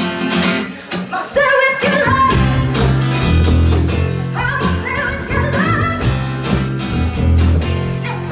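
A song played live by a band: a lead vocal over a steady beat, with bass and regular drum hits.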